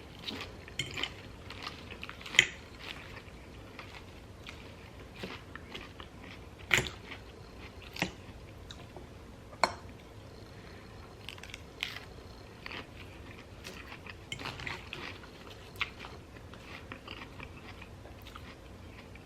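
Close-miked chewing and crunching of mouthfuls of taco salad with romaine lettuce, in short irregular crackles, a few of them sharper and louder.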